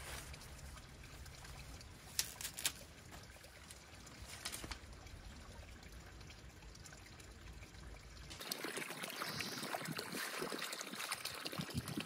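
Water trickling and pouring steadily, with a few light knocks between two and five seconds in. About eight seconds in the sound turns brighter and closer: water from a pipe splashing into a garden pond.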